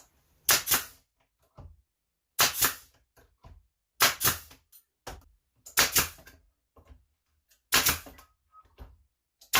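Hammer driving nails into wooden boards, slow knocks about every two seconds, each a quick double strike.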